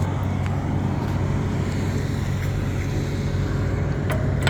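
Steady road traffic noise: car engines and tyres humming, with a few faint short clicks.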